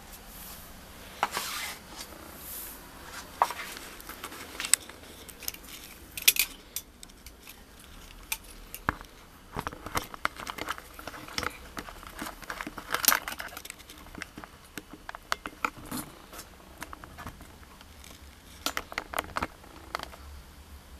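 Irregular light clicks, taps and rustles of handling and movement, with no saw motor running.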